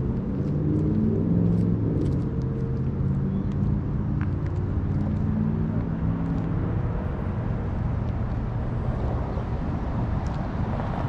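A motor vehicle's engine running steadily, fading out after about seven seconds and leaving a steady outdoor rushing noise.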